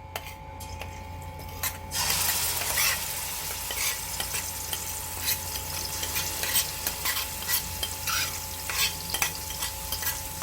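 Wet curry paste going into hot oil in a pot: a few utensil clicks, then about two seconds in a sudden sizzle that carries on as steady frying, with a spoon clinking and scraping as it is stirred.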